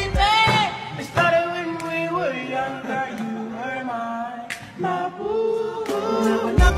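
Background music with sung vocals holding long notes; a heavy low beat comes back near the end.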